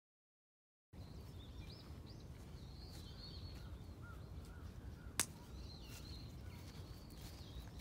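Outdoor ambience: birds chirping repeatedly over a steady low rumble, with one sharp click about five seconds in. The first second is silent.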